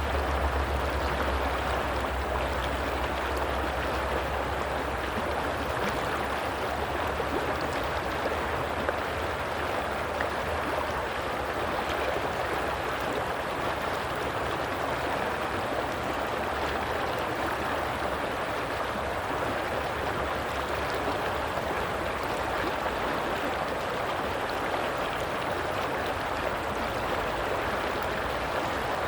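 Stream water flowing in a steady, even rush, with a low rumble underneath that is strongest in the first several seconds and then fades.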